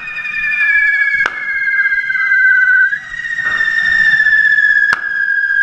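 Hand-held correfoc fireworks (carretilles) spraying sparks with a hiss and a steady, high whistle that slowly falls in pitch. Two sharp firecracker bangs cut through, about a second in and near the end.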